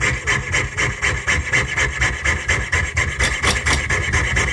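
Jeweler's saw blade cutting through a copper-nickel dollar coin by hand, in quick even rasping strokes of about three a second.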